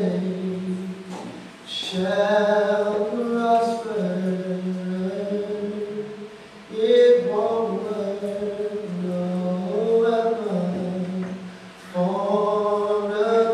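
Church worship group singing together in long held phrases, with short breaks between phrases about every five seconds.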